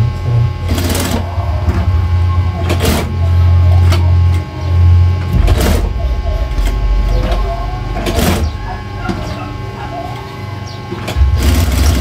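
Juki industrial single-needle sewing machine stitching through a layered jacket placket, its motor hum rising and falling as it sews in stretches, with a sharp knock every two or three seconds.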